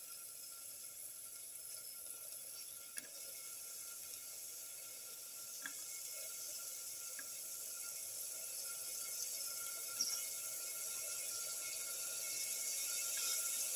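Garlic pieces sizzling in hot oil in a pan: a soft, steady hiss that slowly grows louder, with a few small pops.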